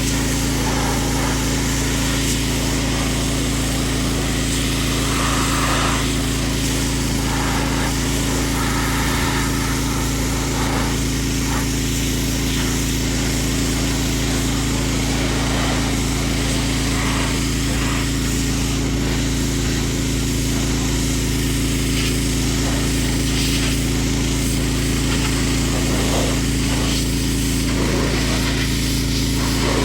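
Pressure washer running steadily: a constant motor drone with a hiss of spray that varies a little as the jet moves.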